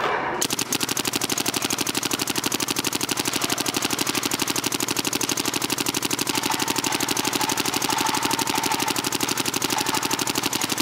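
Planet Eclipse GSL paintball marker firing a long, rapid, even string of shots on compressed air, starting about half a second in and running on without a break as a full 140-round pod is emptied.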